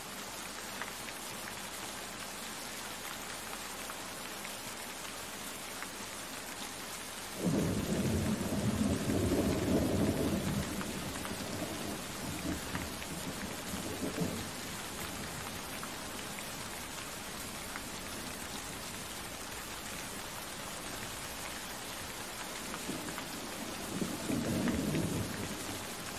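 Steady hiss of falling rain. A deep rumble comes in about seven seconds in and lasts about three seconds, a short one follows around fourteen seconds, and another comes near the end.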